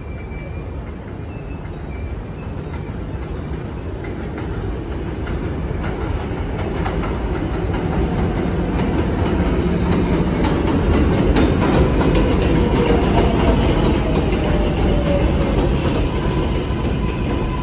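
R142A subway train coming in on an elevated steel structure, its rumble growing louder to a peak about two-thirds through. Wheels clack over rail joints, and a faint wheel squeal slides down in pitch. A steady high whine holds from just past the middle.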